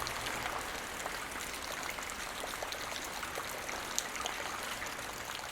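Light rain falling, a steady hiss with many separate drops ticking on the ground, one sharper drop about four seconds in.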